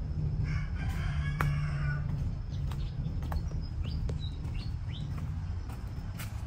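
Birds calling outdoors: a call lasting about a second and a half near the start, then several short chirps, over a steady low rumble, with a few sharp clicks.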